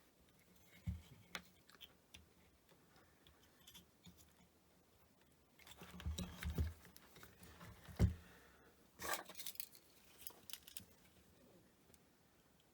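Scattered small clicks, taps and knocks of hand tools and parts being handled at a power supply circuit board, with the loudest knock about eight seconds in and a short scraping crunch just after.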